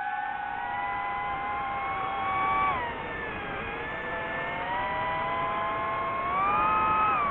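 DJI FPV drone's motors and propellers whining in flight. The pitch drops about three seconds in and climbs again near the end as the throttle changes.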